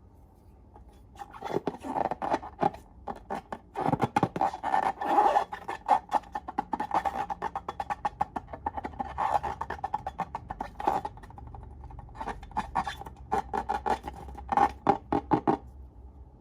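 Slime being squeezed and kneaded by hand, giving rapid runs of sharp wet clicks and pops that start about a second in and stop shortly before the end.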